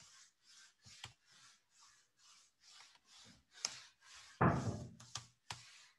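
Computer keyboard being typed on: a string of light key clicks, with one louder, deeper thump about four and a half seconds in.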